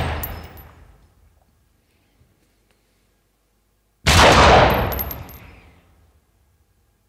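Recorded gunshot sound effect fired from a Zoom PodTrak P8 sample pad in one-shot mode. The tail of one shot dies away over the first second or so, then a second shot goes off about four seconds in and trails off over about two seconds. It is a bit loud at this pad volume.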